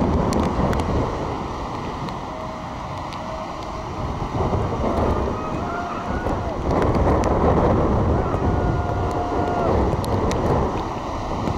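Wind buffeting the microphone over the steady rush of breaking surf, louder for a moment about seven seconds in.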